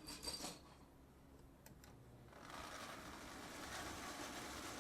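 A few light clicks at the start, then a Marx toy train's electric locomotive and cars running on the track, a steady mechanical running noise that grows louder from about halfway through as the train nears.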